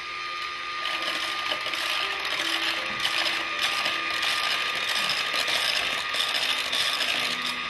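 Electric hand blender fitted with a whisk attachment running steadily in a plastic beaker of cream, a steady high whir, a little louder after the first second. The cream is being whipped almost, but not quite, to stiff peaks.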